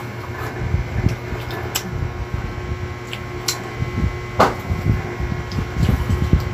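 Close-up chewing and mouth noises of someone eating fried fish, with a few sharp clicks, over a steady fan-like machine hum.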